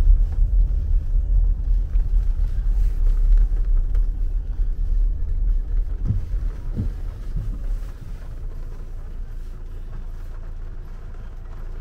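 Low, steady rumble inside a car's cabin, easing off about eight seconds in.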